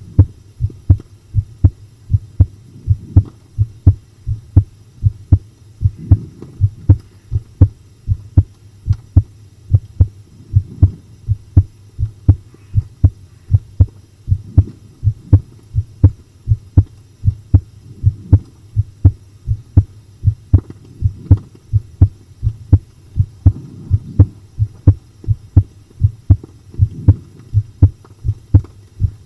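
A person's heart beating steadily, the uploader's 'bakubaku' (pounding) heartbeat, each beat a close pair of low thumps (lub-dub), over a low rumble that swells every few seconds.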